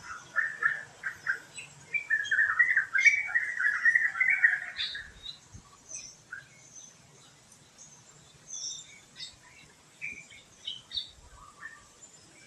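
Birds calling: four or five short notes, then a loud, fast chattering song for about three seconds, followed by scattered faint high chirps from other birds.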